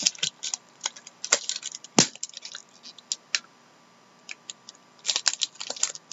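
A foil trading-card pack crinkling and crackling as it is torn open and handled: irregular crinkles and clicks, with one sharp crackle about two seconds in and a brief lull before more crinkling near the end.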